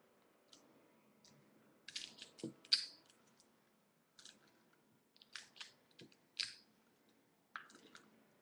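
Paper and tape crinkling and crackling in short, irregular bursts as hands press tape onto a folded-paper model pistol.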